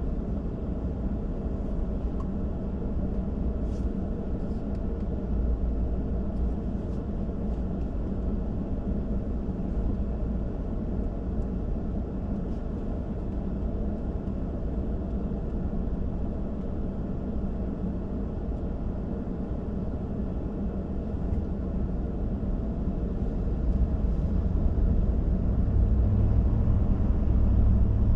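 A car driving on city streets: a steady low rumble of engine and road noise, growing louder over the last few seconds.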